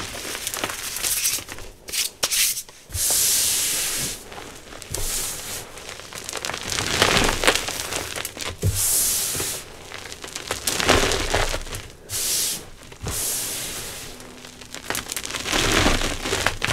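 Hands crushing and rubbing old reformed blocks of gym chalk into powder: dry, gritty crunching in repeated strokes a second or two long with short pauses between, and a few sharp cracks as pieces break.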